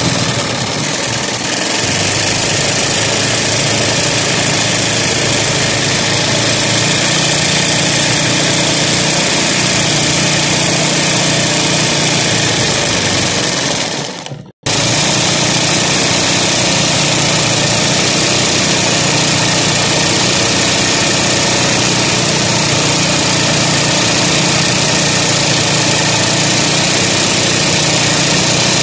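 Electric sewing machine running fast and steadily as it stitches free-hand satin-stitch embroidery on fabric held in a hoop. The sound breaks off for an instant about halfway through, then carries on.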